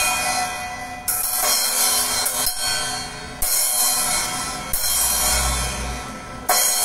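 Drum-kit cymbals struck one at a time with a stick during a soundcheck of the overhead microphones: four crashes, each ringing out and fading for one and a half to two seconds before the next.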